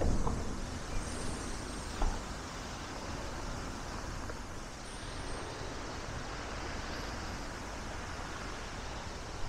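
Steady, even outdoor background noise with no single source standing out, as a passing vehicle's low rumble dies away at the very start.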